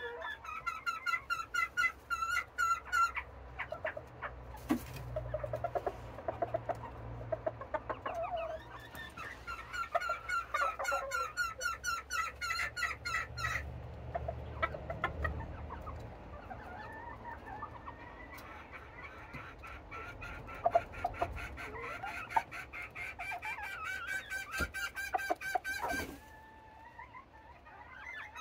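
Serama bantam chickens clucking and calling, several at once, in bursts of rapid repeated calls with short lulls between them.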